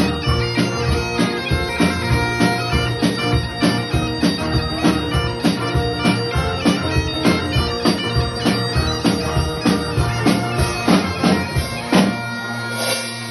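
Live band music: a stage keyboard and an acoustic guitar play over a held low note, with a steady beat of about two strokes a second.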